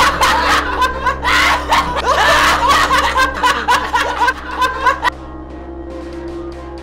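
Several men laughing loudly together over a low, steady music drone; the laughter cuts off abruptly about five seconds in, leaving only the drone.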